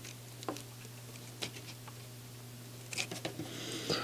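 Soldering iron pressed on copper desoldering braid over a surface-mount IC's pins, giving a few faint clicks and ticks and a short hiss of sizzling flux near the end, over a steady low hum.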